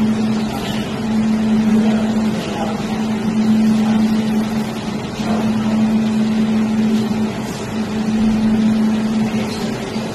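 Jewelry laser welding machine humming steadily while it powers up, with a few brief dips in the hum.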